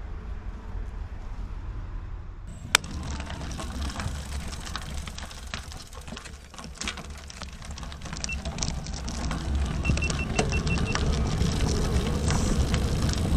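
Wind buffeting the microphone as a low rumble, with a sharp click about three seconds in and scattered smaller clicks after it. A short run of quick, even, high electronic beeps comes near the end.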